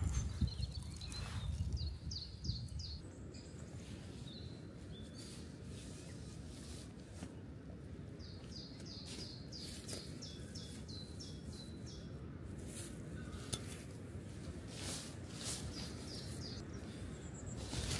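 A songbird sings quick runs of short, falling high notes, once about a second in and again in the middle, over a low outdoor hum. Brief rustles and crackles of dry leaf litter and tent fabric being handled come more often toward the end.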